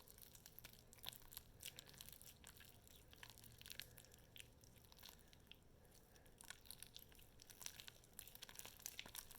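Faint, irregular sticky crackles and clicks of homemade glue slime being mixed with borax activator; the slime is still sticky.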